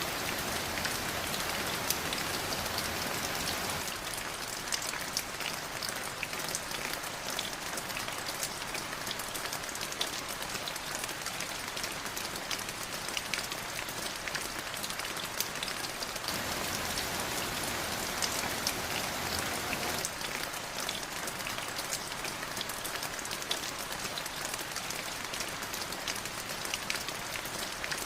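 Steady rainfall with individual drops pattering on a surface; the sound shifts slightly in tone a few times, as if recordings are joined.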